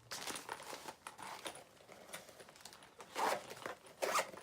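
A makeup bag being handled: irregular crinkling and rustling, with a couple of louder rustles near the end.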